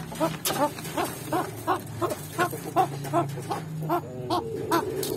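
Pheasant giving a rapid run of short, low clucking calls, about three a second, over a low hum.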